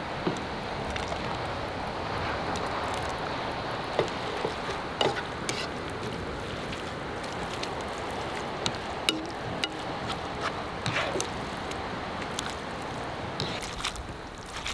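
Metal tongs clicking and scraping against a stainless frying pan as spaghetti is tossed in sauce, in scattered sharp clicks. Under them runs a steady rush of sea surf and wind.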